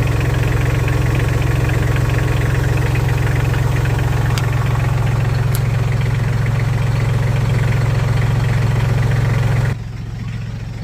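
Tractor engine idling steadily with a strong low hum, running so the repaired power steering line can be checked for leaks. Near the end the sound drops off sharply.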